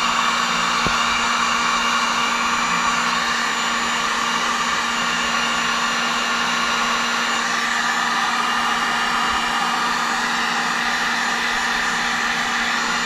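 Electric heat gun running on its high heat setting, a steady blowing rush with a constant motor hum, as it shrinks heat-shrink tubing down over a wire connection.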